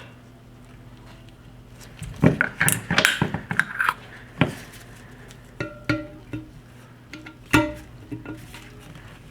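Metal Mosin-Nagant rifle parts being handled and fitted together: a quick run of clinks and knocks for a couple of seconds, then several single sharp metallic clicks, some with a brief ring.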